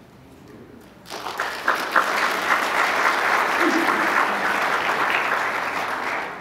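Congregation applauding after a speaker finishes, starting about a second in and dying away near the end.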